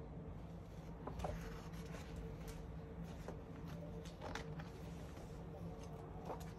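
Pages of a hardcover cookbook being turned and pressed flat by hand: a few soft paper rustles over a steady low hum.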